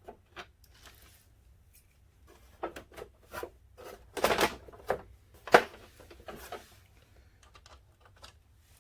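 Hand tools and parts being handled: scattered clicks and knocks, with a loud clatter about four seconds in and a sharp knock about a second later.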